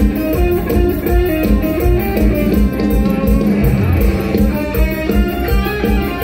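Mor lam band music without singing: a plucked-string melody over bass and a steady drum beat, played loud.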